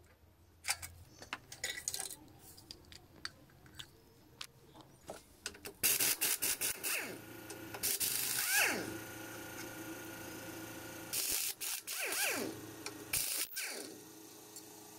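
Light metallic clicks and clinks of hand tools on the engine, then an impact wrench firing in two loud bursts, about six and eleven seconds in, as it undoes bolts on the motorcycle's handlebar and steering head; each burst ends with a falling whine as the tool spins down.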